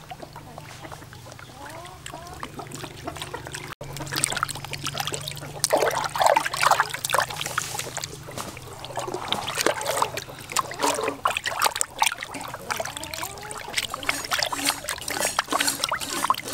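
Water splashing and sloshing in a plastic basin as a large fish is rubbed and washed by hand, becoming louder and busier about four seconds in, with many short irregular splashes.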